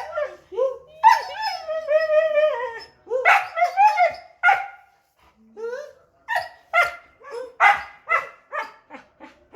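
Dog whining and yipping impatiently for food: a long wavering whine about a second in, then a quick run of short, sharp barks and yips in the second half.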